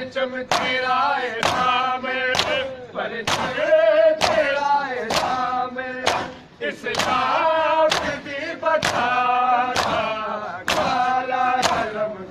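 Men beating their bare chests with open palms in unison (matam), a sharp slap about once a second, while men's voices chant a mourning lament over the beat.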